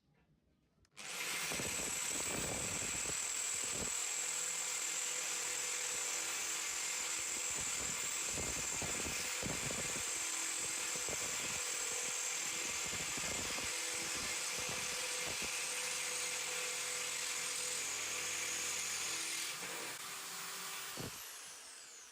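Power drill running steadily with a larger bit, boring through the enamelled steel wall of a Weber kettle grill to widen a pilot hole. It starts about a second in and winds down near the end.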